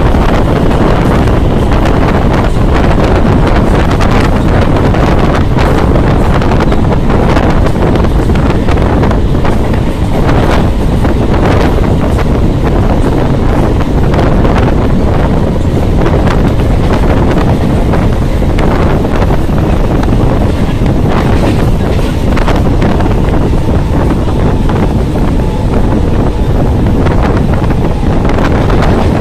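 Wind buffeting the microphone held out of a moving electric local train, over the steady running noise of the train on the track.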